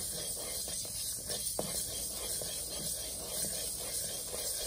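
Mustard and fenugreek seeds dry-roasting in a metal kadai while a wooden spatula stirs them. Sparse, irregular clicks of mustard seeds popping mix with the scrape of seeds over the pan. The popping shows the mustard is roasted enough.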